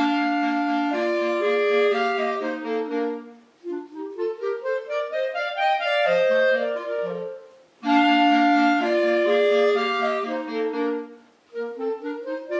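Short instrumental theme tune: a melody of quick notes with a rising run in the middle, played twice, the second time starting about eight seconds in.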